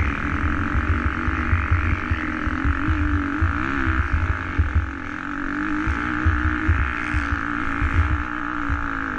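Four-stroke 250 cc single-cylinder motocross bike engine (KTM SX-F 250) running continuously at race speed, its pitch wavering slightly as the throttle changes. A steady rush and irregular low thumps run under it.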